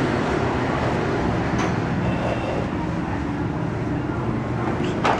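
Steady background rumble of street traffic, with two light clicks, one about a second and a half in and one near the end.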